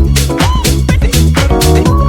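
Background dance music with a steady, fast beat.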